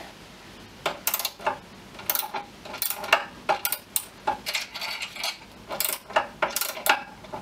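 Ratchet wrench with a half-inch socket tightening the domed nut on a mower's height adjuster screw: sharp, irregular metallic clicks and clinks, a few to the second, starting about a second in.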